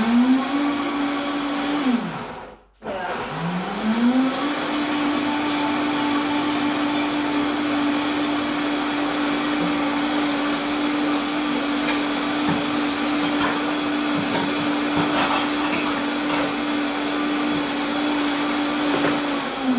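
Vitamix blender motor puréeing chickpea hummus: it spins up, runs briefly, winds down and stops about two seconds in, then spins up again a second later and runs at a steady pitch until it winds down at the end.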